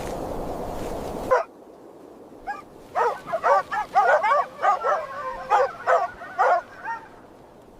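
A steady rushing noise cuts off suddenly about a second in. After that, a dog yips and whimpers in a quick run of short, high, wavering calls, then falls quiet near the end.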